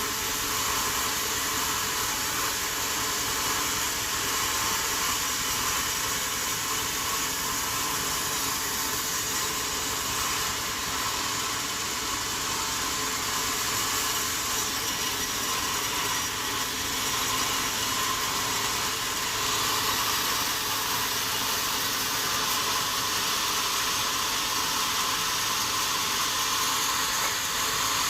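Sawmill machinery running steadily: a continuous hissing, whirring machine noise with a faint low hum and no breaks or distinct impacts.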